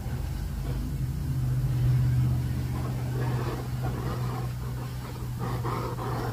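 A handheld propane torch flame runs with a hissing rush as it is played over plastic. Under it is a steady low hum with rumble, loudest about two seconds in.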